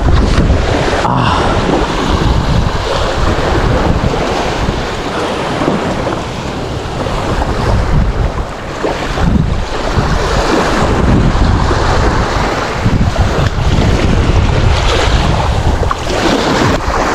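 Wind buffeting the microphone over the steady wash of sea waves on the shore, loud and gusting.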